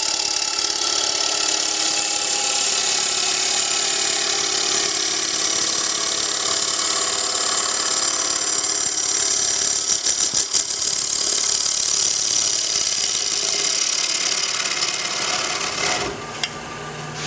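Freshly sharpened bowl gouge cutting the inside of a spinning wooden bowl on a lathe: a steady hiss of shavings peeling off, with the lathe running underneath. A brief rattle about ten seconds in; the cut stops about a second before the end, leaving the lathe's quieter hum.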